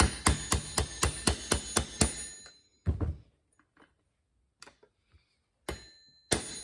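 Plastic-faced mallet striking a screwdriver set against a Husqvarna 340 chainsaw's clutch to tighten it onto its reverse-threaded shaft. About ten sharp taps at roughly four a second with a light metallic ring, then single taps about three seconds in and near the end.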